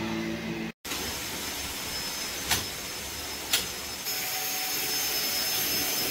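Power tools at work: a steady whirring noise broken by two sharp knocks about a second apart. About four seconds in it gives way to a louder electric sander with a high steady whine, sanding the plywood wall of an enclosed trailer.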